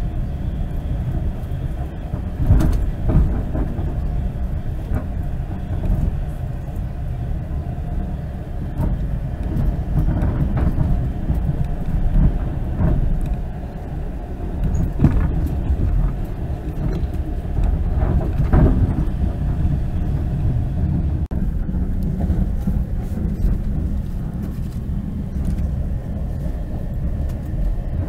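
Passenger train running along the track, heard from inside the carriage: a steady low rumble of wheels on rails, with a few sharp knocks now and then.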